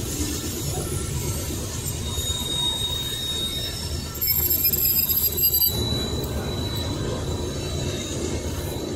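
Coal cars of a slow freight train rolling past: a steady low rumble of steel wheels on rail, with thin, high-pitched wheel squeal. The squeal grows louder and sharper for about a second and a half, starting about four seconds in.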